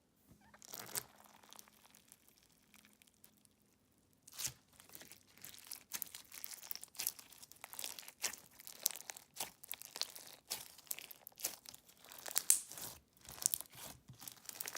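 Crunchy slime being squeezed and pressed by hand, giving a dense run of crackling and popping. There is a brief sound near the start and a short pause before the steady crackling begins about four seconds in.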